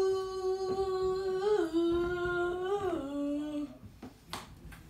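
A high voice humming three long held notes, each a step lower than the last, for about four seconds. A faint click or two follows near the end.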